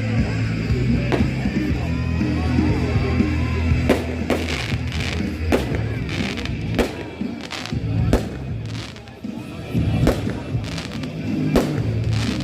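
Fireworks display set to music: steady music with a deep bass line throughout, and from about four seconds in a rapid series of sharp firework bangs and crackles.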